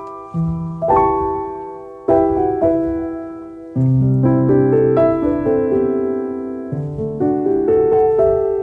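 Background piano music: struck chords that ring and fade, turning into a busier run of notes about four seconds in.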